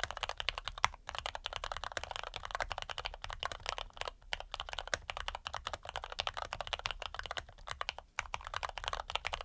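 Fast continuous typing on an ABKO AR87 mechanical keyboard with lubed Cherry MX Red linear switches, many keystrokes a second with a few short pauses.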